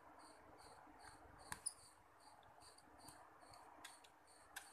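A few sharp clicks from a precision screwdriver working the small screws of a Micromax A107 phone's inner frame, the loudest about a second and a half in and again near the end. Behind them a cricket chirps steadily, about three high chirps a second.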